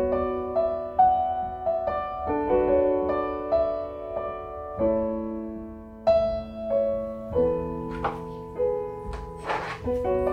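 Background piano music: a melody of notes over held chords, each note struck and then fading. A brief hiss-like swish comes a little before the end.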